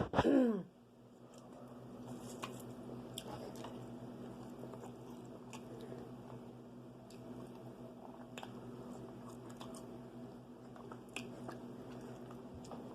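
People chewing and biting into fried chicken and cheese fries, with wet mouth clicks and small crunches scattered throughout. A steady low hum runs underneath.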